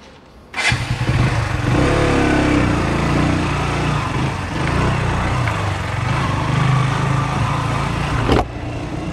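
KTM RC 125 single-cylinder motorcycle engine running steadily at low revs while ridden slowly on a punctured tyre. It starts suddenly just under a second in and drops away shortly before the end.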